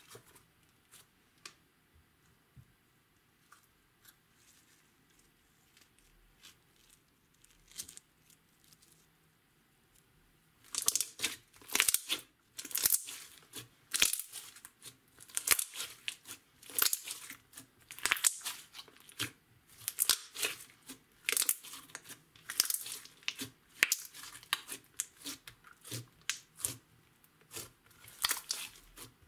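Glossy purple glitter slime being squeezed, stretched and pressed by hand, giving wet clicks and crackles. Only a few faint clicks for the first ten seconds, then busy crackling and popping, several a second, from about ten seconds in.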